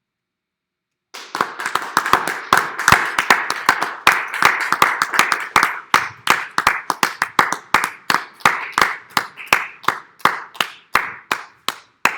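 A small audience clapping: the applause starts abruptly about a second in, with a few loud, close individual claps standing out over the rest, then thins out and slows toward the end.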